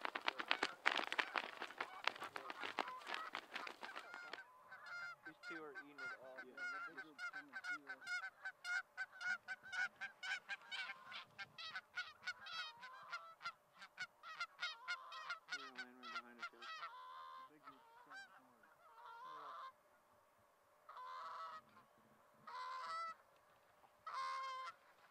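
A flock of Canada geese honking as it flies in: a dense clamour of overlapping honks at first, then rapid separate honks that thin out to single honks a second or two apart toward the end.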